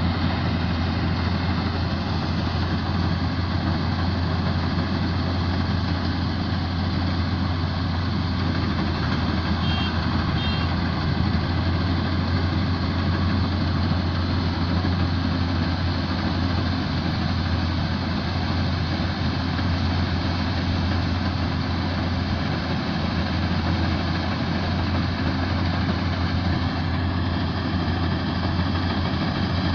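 Combine harvester engine and threshing machinery running steadily at an even, deep hum.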